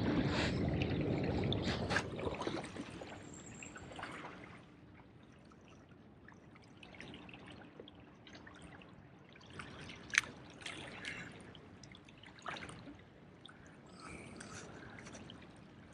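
Small waves lapping and trickling among rocks at the water's edge, louder for the first few seconds and then faint, with a few light clicks, the sharpest about ten seconds in.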